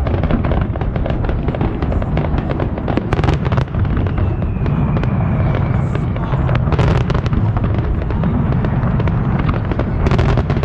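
Aerial fireworks display: a continuous rumble of booms overlapping with rapid crackles and sharp bangs, and a faint whistle sliding down in pitch around the middle.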